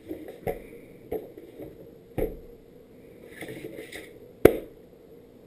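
Skateboard being handled and flipped over by hand: a handful of knocks from the deck and trucks, the loudest about four and a half seconds in. Just before it there is a brief scratchy rubbing of hands on the grip tape.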